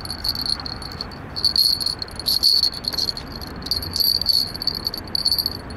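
Insects chirping in a steady high trill that swells louder about four times.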